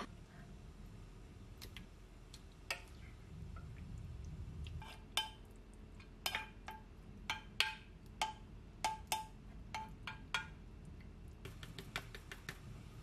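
A spoon scraping and knocking against ceramic as mapo tofu is spooned onto rice, about a dozen sharp knocks each ringing briefly. Near the end, a quick run of light clicks as dried parsley is shaken out of a jar.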